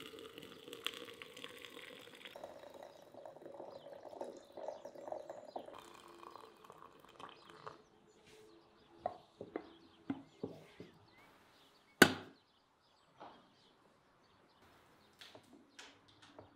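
Hot water pouring in a steady stream from a samovar's tap into a glass teapot of loose tea, lasting about six seconds. Scattered light clicks and knocks follow, the loudest a single sharp click about twelve seconds in.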